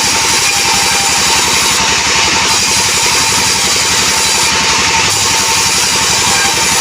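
Band sawmill running steadily, its blade cutting through albasia wood. There is a fast, even low pulse under a steady high whine and hiss, with no change in level.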